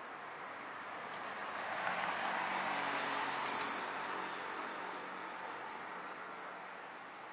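A vehicle passing along the street: its tyre and engine noise swells to a peak about two to three seconds in, then slowly fades away.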